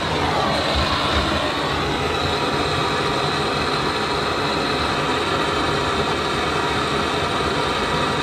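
Handheld gas blowtorch burning with a steady hiss of its blue flame.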